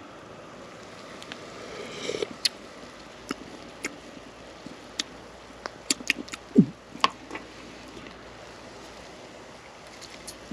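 Metal spoon clicking against the Trangia 27's aluminium pot several times as soup is scooped for tasting, with a short sip, the loudest sound, about six and a half seconds in. Underneath runs the steady low hiss of the soup coming to the boil.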